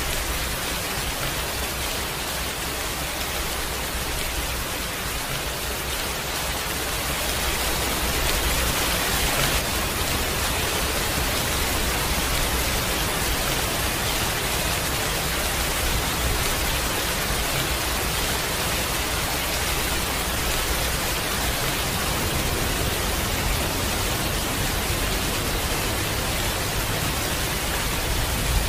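Heavy rain falling steadily: a dense, even hiss with a low rumble underneath, growing slightly louder about seven seconds in.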